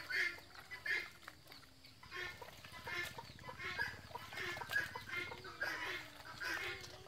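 Chickens clucking in short, repeated calls, with light splashing and handling noise from mushrooms being washed by hand in a metal bowl of water.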